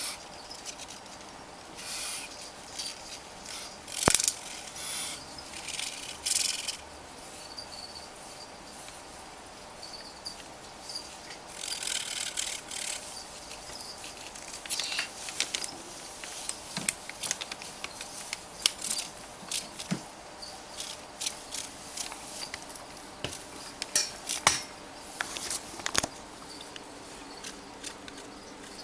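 Newspaper crinkling and rustling under an indigo snake as it moves over the paper, strikes and starts swallowing a mouse, with scattered sharp clicks and scrapes.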